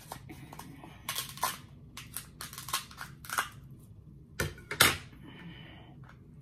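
Kitchen scissors snipping through a king crab leg's hard shell: a run of sharp, crunchy cracks, then two louder cracks of the shell about four and a half seconds in.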